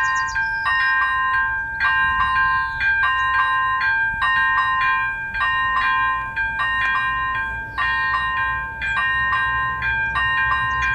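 Electronic warning bell of an AŽD 97 level-crossing signal ringing a bell-like ding about twice a second, the crossing's warning that a train is approaching.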